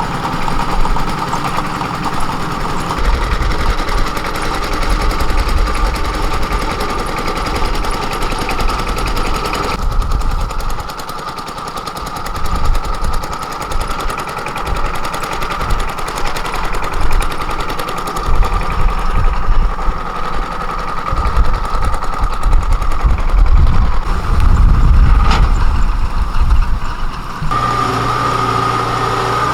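Engine running, with an irregular low rumble beneath a steady hum; the sound changes abruptly about a third of the way in and again near the end.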